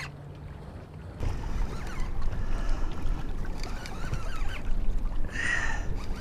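Wind and water noise around a small fishing boat, growing louder about a second in. A brief high-pitched cry comes near the end.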